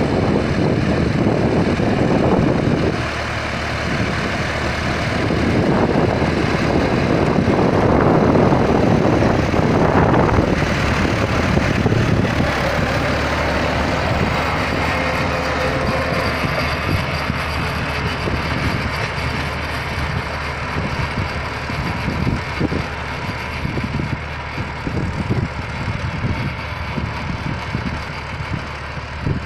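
John Deere 5405 tractor's diesel engine running under load as it pulls a rotavator through the soil. It is loudest as it passes close, about a third of the way in, then fades steadily as it pulls away.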